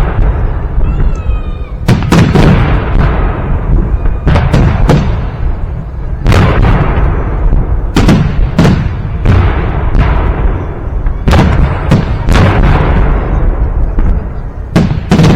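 Victory Day fireworks salute: about nine loud booms of bursting shells, one every second or two, each followed by a long rolling echo. A brief wavering whistle sounds about a second in.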